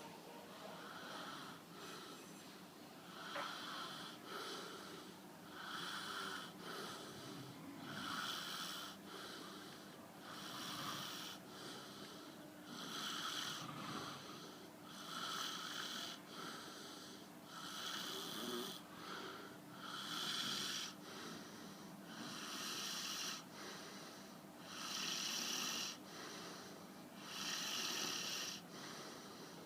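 A person snoring steadily, one rasping breath about every two and a half seconds, a dozen or so in a row.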